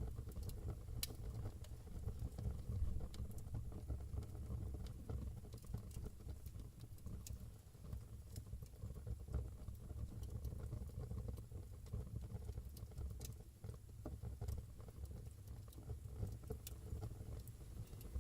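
Fire burning in a fireplace: a steady low rumble of flames with scattered crackles and a few sharper pops.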